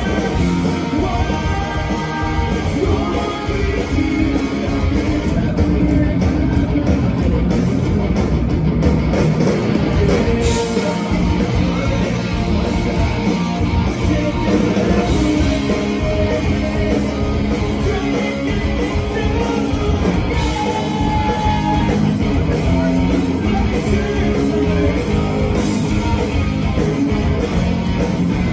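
Rock band playing live, loud, with electric guitars and a drum kit.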